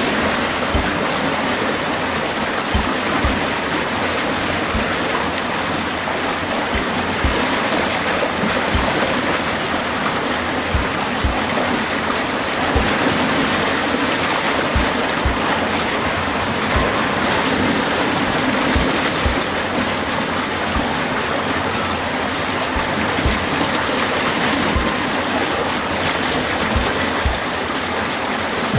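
Steady rush of river water, with short low thumps every second or so.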